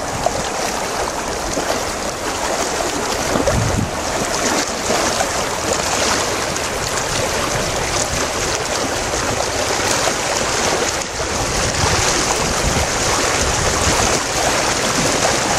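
Kootenay River rushing steadily over rocks, a continuous loud hiss of running water, with some low buffeting of wind on the microphone.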